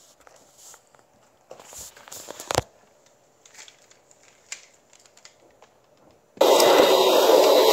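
Faint scattered clicks and crackles, with one sharper click, then about six seconds in a loud, steady rushing noise starts abruptly: wind and sea noise on a phone microphone aboard a sailing boat at sea.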